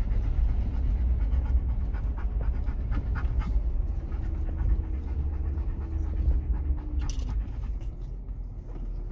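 A dog panting steadily inside the cabin of an off-road vehicle, over the low rumble of the vehicle driving on a rough dirt trail.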